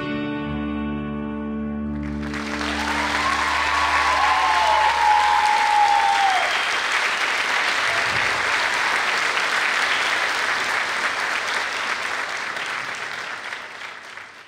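The last chord of a guitar-accompanied song rings out and fades, and about two seconds in an audience breaks into applause, with a long high whoop over it for a few seconds. The applause fades out near the end.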